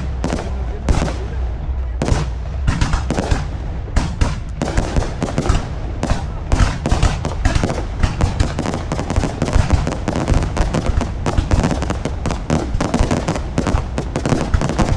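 Aerial fireworks bursting, many sharp bangs and crackles a second in a dense, irregular barrage over a continuous low rumble.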